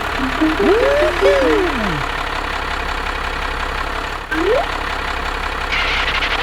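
Mini tractor engine running steadily. A few whistle-like tones slide up and down over it about a second in, and one more rises just after four seconds.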